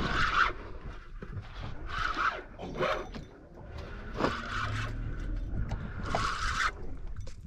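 A large spinning reel being cranked by hand, bringing a hooked fish up, with irregular scraping noises from the reel and rod that come and go.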